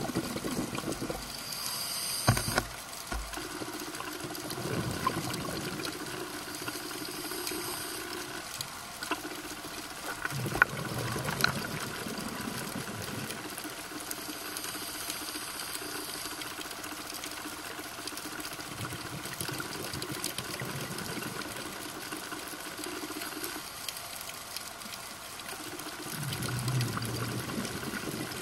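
Underwater sound of a scuba diver breathing through a regulator: a low bubbling rumble of exhaled air every several seconds, with a few sharp clicks.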